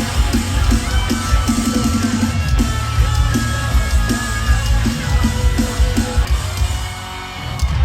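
Live pop-punk rock band playing loud and amplified: pounding drum kit with distorted electric guitars. The music thins out near the end, with one last hit.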